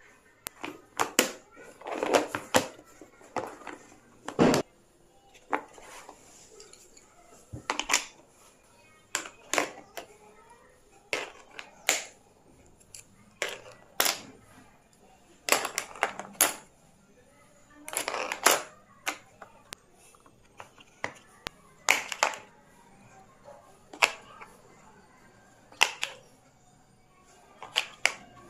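Stationery items being set down and knocked into a pencil box, a sharp clack or short clatter about every two seconds.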